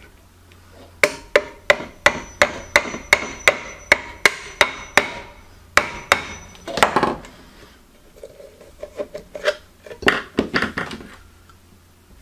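Claw hammer tapping the handle of a screwdriver held against the side of a tin can, punching a hole through it. A quick run of about a dozen sharp taps, roughly three a second, with a faint ringing tone between them, then a few scattered strikes later.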